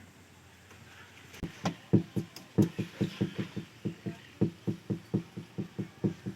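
Parrot making a rapid run of low, hollow knocking clicks, about four a second, starting about a second and a half in.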